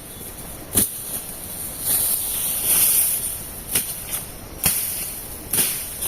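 A series of sharp knocks or chops, roughly a second apart in the second half, with a rustling swell of noise shortly before them, over a steady high hiss.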